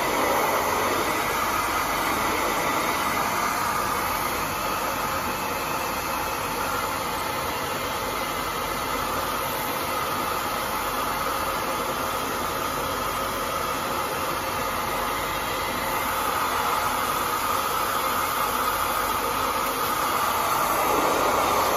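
Handheld hair dryer running steadily, blowing hot air onto the ice-covered evaporator coil of a split-type air conditioner to melt the ice.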